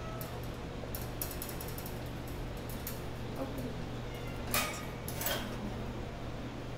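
Metal wire cage clinking and rattling as a cat brushes against it and is petted through the bars: a few light clicks about a second in and two louder clatters near the end, over a steady room hum.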